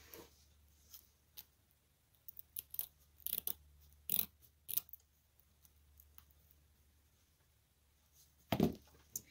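Small scissors snipping through a strip of velcro tape in a run of short cuts, followed near the end by a single louder thump.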